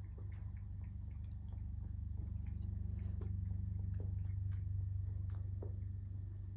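Cat purring: a steady low rumble, with small scattered clicks over it.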